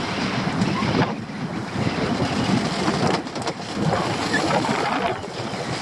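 Wind buffeting the microphone over waves slapping against a small open boat, while a crab pot is hauled up and over the side.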